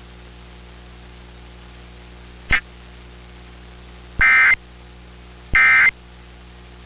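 Emergency Alert System SAME header data bursts: short electronic tone bursts, each about a third of a second, repeating about 1.3 s apart, the third starting near the end, marking the start of a new alert. Beneath them a steady hiss and hum of the broadcast, with a brief click about two and a half seconds in.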